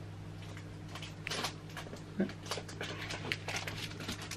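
Faint crinkling and small clicks of a small plastic wrapper being opened, starting about a second in, over a steady low hum.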